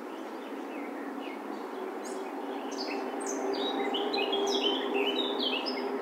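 A Sylvia warbler singing: a fast, warbling phrase of short high notes that begins about a third of the way in and grows louder toward the end, over a steady low background hum.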